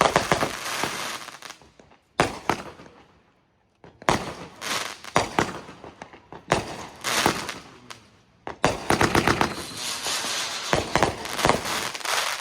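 Fireworks going off: several bursts of rapid sharp pops and crackles, with short lulls between them.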